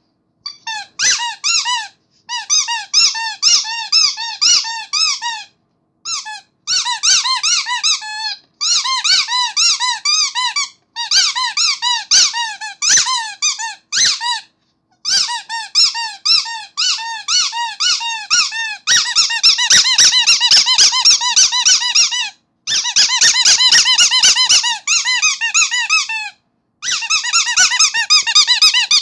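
Rubber starfish squeaky toy squeezed over and over: short squeaks that rise and fall in pitch, several a second, in runs broken by brief pauses, coming faster in the later runs.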